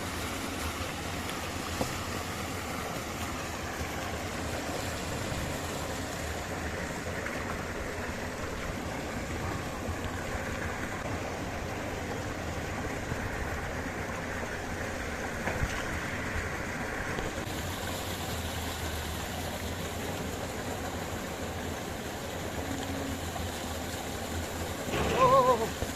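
Mountain stream water running steadily, with a couple of faint knocks and a brief voice near the end.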